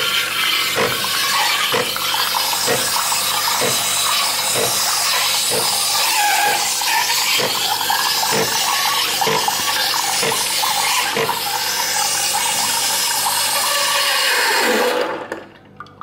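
Morphy Richards Kaffeto coffee machine frothing milk and dispensing it into a mug for a cappuccino: a steady hiss with a faint knock about once a second. It stops about a second before the end.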